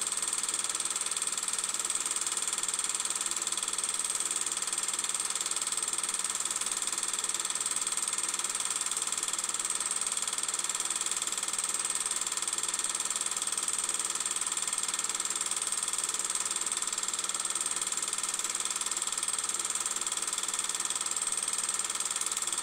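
A steady mechanical whir with hiss, unchanging throughout, with no speech or music.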